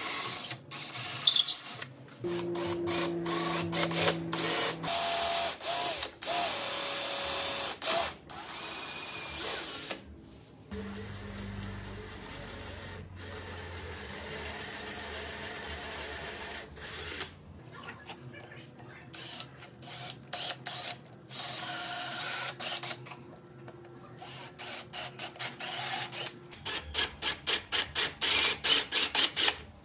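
Cordless drill with a twist bit boring holes into the edge of a wooden ring, the motor starting and stopping many times. Near the end it runs in quick short bursts.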